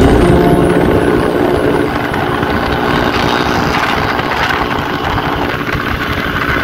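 Motorcycle running at speed, its engine drone mixed with a steady rush of wind over the microphone.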